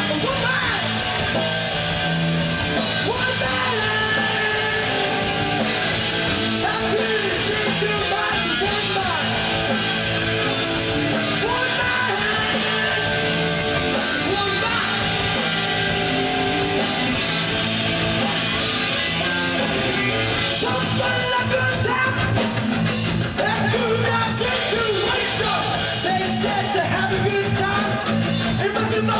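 Punk rock band playing live: loud electric guitar and band with a singer shouting the lyrics into a microphone.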